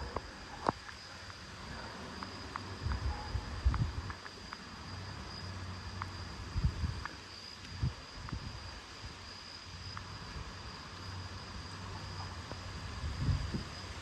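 Crickets chirping in a steady high drone, with scattered low thumps as the phone is handled and moved, and a faint low hum that comes and goes.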